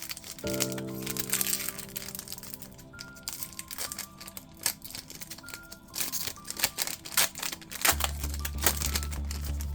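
Foil booster-pack wrapper crinkling and cards being handled, over background music; a deeper bass part comes into the music near the end.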